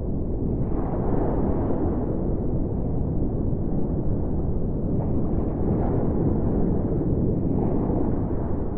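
Underwater ambience: a steady low rushing rumble of water, with no distinct tones, swelling slightly about a second in, again past the middle and near the end.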